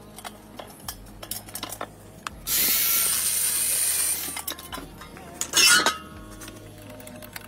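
Metal clicks and taps from hand tools on a rusted bolt, then an angle grinder's cutting disc grinding through the bolt for about two seconds. A second short, louder burst follows a little over a second later.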